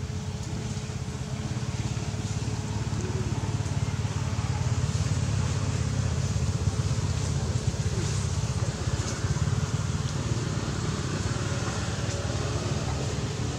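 Steady low rumbling noise that swells slightly in the middle, with a faint steady hum above it.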